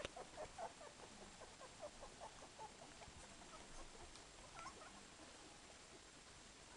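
Twelve-day-old Dalmatian puppies squeaking faintly, a quick run of short calls about three a second that fade over the first few seconds, then a couple more a little later.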